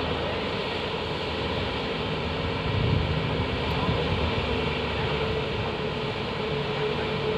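Diesel engines of Tata Hitachi hydraulic excavators and a Volvo 460 mining tipper running steadily while coal is loaded, a constant engine drone with a steady hum. It swells briefly about three seconds in.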